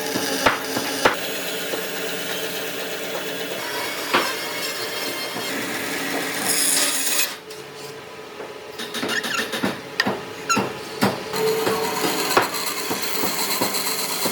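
Woodworking sounds: a steady machine hum with sharp knocks of wood. The hum drops away about seven seconds in, then comes a quick run of knocks and scraping on wood.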